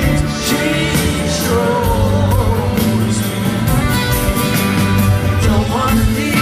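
Live rock music: a man singing lead while strumming an acoustic guitar, backed by a full rock band.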